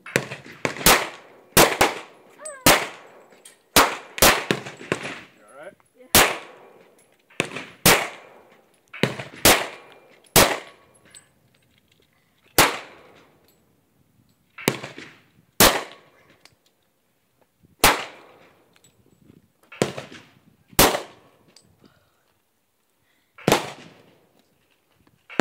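Springfield XD-40 pistol firing single .40 S&W shots at an uneven pace, about eighteen sharp reports, some in quick pairs and others a couple of seconds apart, each ringing out briefly.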